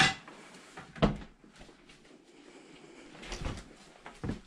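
A few sharp knocks and clunks of hard objects being bumped or moved in a small room: a loud one at the start, another about a second in, then a cluster of softer ones and a last knock near the end.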